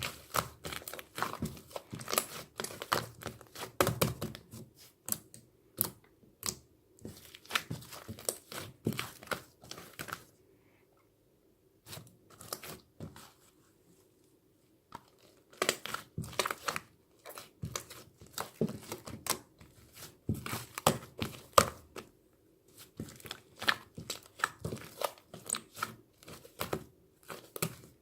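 Crinkling, tearing handling noise: bursts of rapid sharp crackles, broken by two pauses of a second or two near the middle.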